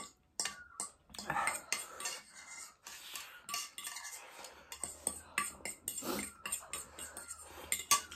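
Eating utensils clinking and scraping against a bowl of ramen noodles in many short, irregular knocks.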